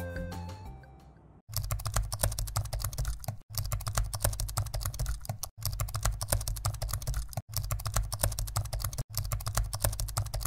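Typing sound effect: rapid keystroke clicks in five runs separated by brief breaks. Background music fades out in the first second and a half.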